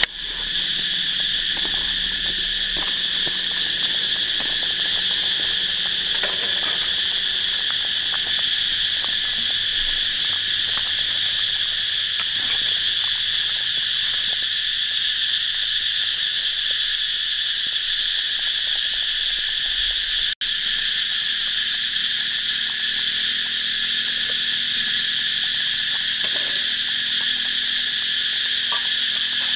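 Dense, steady chorus of insects shrilling in the forest, a continuous high buzzing drone. It breaks off for an instant about 20 seconds in.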